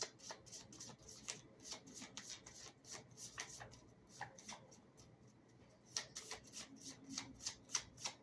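A deck of cards being shuffled by hand: a quick run of light card snaps, about four or five a second, that thins out about four seconds in and picks up again about two seconds later.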